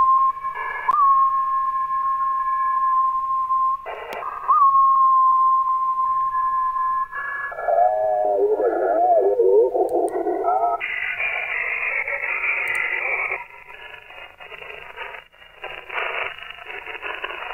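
Citizens band (27 MHz) transmissions received in upper sideband through a web SDR: a steady whistle from a test carrier for about seven seconds, broken briefly near four seconds in. After that come warbling, mistuned sideband voice and static hiss.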